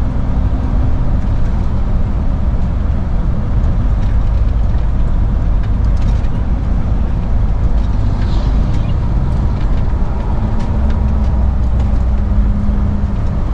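Steady low rumble of a vehicle's engine and road noise while driving, with a faint engine hum standing out in the last few seconds.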